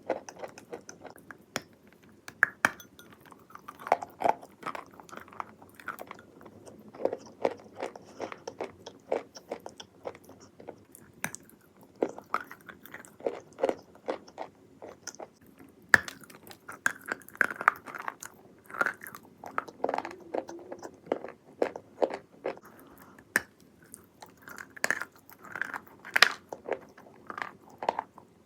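Wet clay being bitten and chewed close to the microphone: a run of irregular crunches and crackles.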